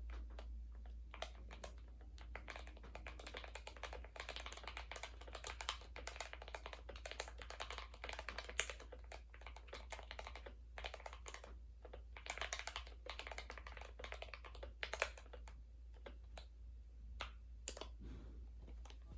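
Typing on a GK61 mechanical keyboard with lubed Gateron Optical Red linear switches and a foamed case: a fast, continuous stream of keystroke clacks with a few louder strokes.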